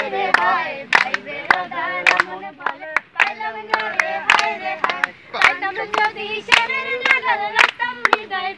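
Voices singing a song, with sharp hand claps about two or three a second.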